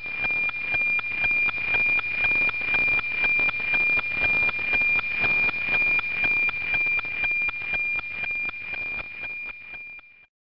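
NOAA weather satellite APT signal demodulated by a 137 MHz receiver: a steady high tone with a regular tick-tock about twice a second, each tick marking a new line of the weather image. It fades slightly near the end and then cuts off.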